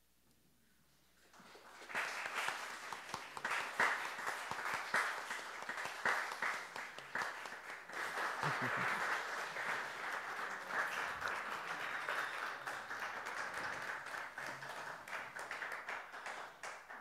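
Congregation applauding, starting about a second and a half in and tapering off near the end.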